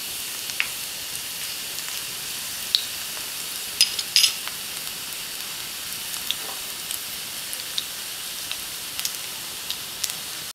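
Hot oil sizzling in a pan with mustard seeds, cumin seeds and dried red chilli for a tempering, a steady hiss broken by scattered sharp pops and crackles.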